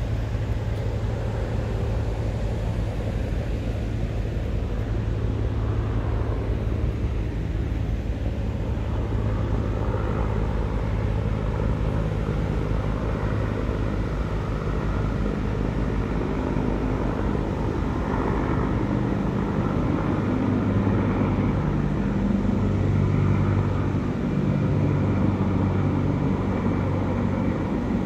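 Large military helicopter flying overhead, a steady low rotor thrum that grows somewhat louder in the second half.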